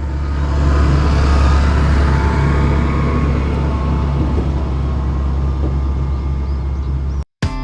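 Tractor engine running steadily with a round baler working, a constant low hum under a mechanical clatter. It cuts off suddenly about seven seconds in.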